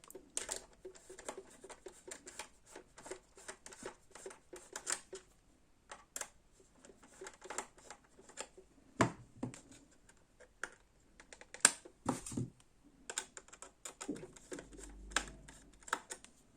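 Small screwdriver undoing the screw on the plastic battery-compartment cover of a Hippo Bob toy: scattered light clicks and scrapes of metal on plastic, with a few louder knocks about nine and twelve seconds in as the toy and cover are handled.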